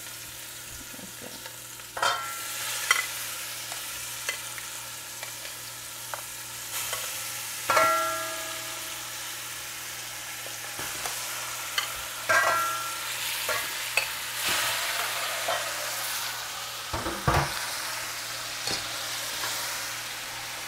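Seasoned chicken pieces sizzling as they go into hot oil and burnt curry in a metal pot, a steady frying hiss as they are scraped in from a glass bowl and stirred with a spoon. Sharp ringing clinks of the spoon and bowl against the pot every few seconds, the loudest about eight seconds in.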